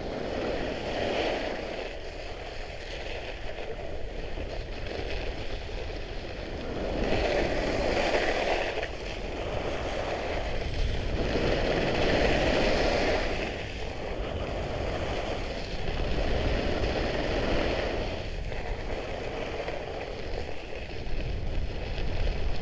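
Ski blades of a Trikke Skki scraping and hissing over cold, hard-packed snow as it carves down a ski run, the sound swelling and fading every few seconds with the turns, with wind rumbling on the helmet microphone.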